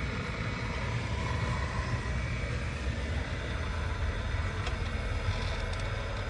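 Radio-controlled model construction vehicle running: a steady motor and gear noise over a low rumble.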